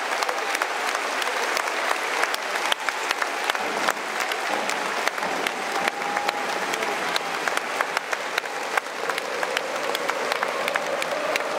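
Stadium crowd applauding steadily, a dense patter of hand claps, with faint voices calling in the crowd beneath it.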